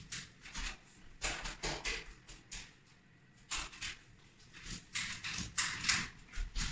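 A façade paint roller on a telescopic pole is rolled through joint compound over drywall tape on a ceiling. It makes a series of short noisy strokes in irregular clusters, with a quieter gap about three seconds in.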